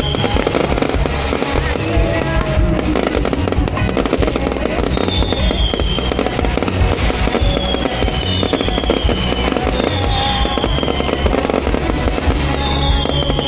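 Aerial fireworks display going off in a dense, continuous barrage of bangs and crackles, with short falling whistles several times.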